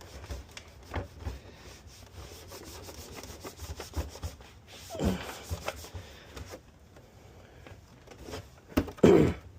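Rubbing and scraping handling noises with scattered small clicks and knocks. A louder scrape comes about halfway through and the loudest knock near the end.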